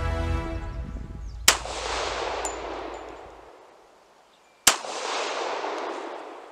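Two shots from a 1911 Government Model pistol, about three seconds apart, each followed by a long echo dying away.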